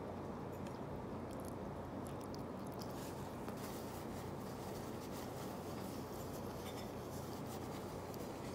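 Paper napkin rustling and crinkling as fingers are wiped, over a steady low hum and hiss; the crackling gets busier from about three seconds in.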